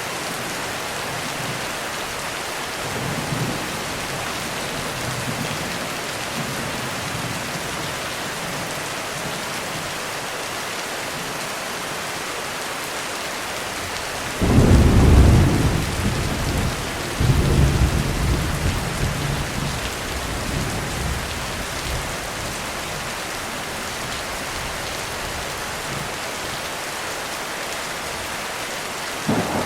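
Heavy rain drumming steadily on a roof, with a thunderclap about halfway through that rolls on in a second surge for several seconds before fading. A faint distant rumble comes early, and another clap breaks just at the end.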